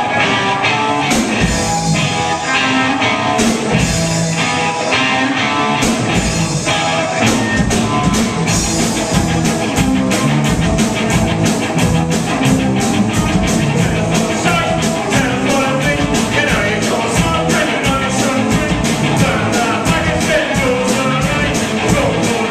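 Live rock band playing a song, with singing over guitar and drums. The drums settle into a fast steady beat about seven seconds in.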